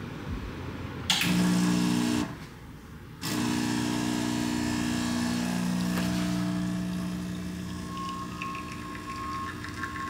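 AnZa espresso machine's pump humming as an espresso shot is pulled: a loud burst starts about a second in and stops a second later, then after a short pause the pump hum resumes and runs on steadily, slowly getting quieter.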